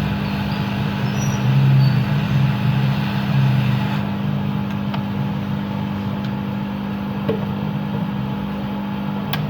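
Hot air gun blowing steadily, a constant fan hum with air hiss, heating beside a phone's charging jack to melt the solder so the jack's pins settle into the board. The hiss drops a little about four seconds in, and there are a couple of faint clicks near the end.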